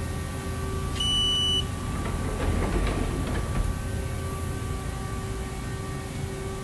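Steady hum of an idle Haas ST-30 CNC lathe, with several steady tones running through it. About a second in comes a single clean electronic beep lasting just over half a second, followed by a short spell of irregular rattling noise.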